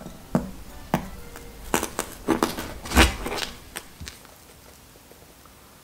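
Wooden spoon breaking through the crisp, oven-toasted marshmallow crust of a Nutella s'more dip and knocking against the ceramic baking dish. It gives a series of crackles and sharp knocks for about four seconds, the loudest about three seconds in, then dies away.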